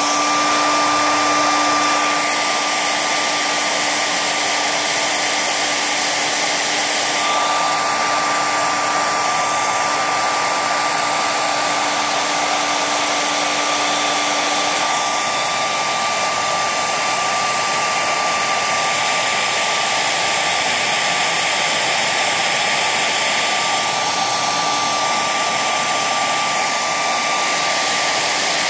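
Hair dryer running steadily at close range, blowing hot air: an even rush of air with a steady whine over it, and a lower hum that drops away about halfway through.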